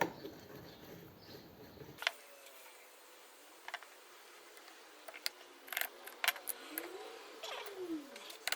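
Light metallic clinks and taps of small steel parts being handled and fitted together, several scattered strikes, as a starter motor's Bendix drive is reassembled dry onto the shaft.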